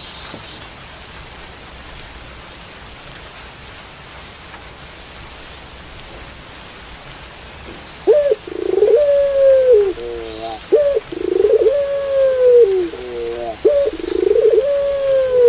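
Steady rain hiss, then about eight seconds in a puter pelung, a domestic ringneck dove, starts cooing loudly: long drawn-out coo notes broken by short stepped notes, repeated three times.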